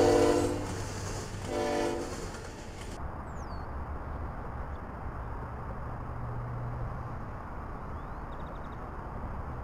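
Diesel locomotive horn sounding two short blasts about a second and a half apart as a freight train passes. Then the sound cuts to a steady low rumble with a faint high chirp.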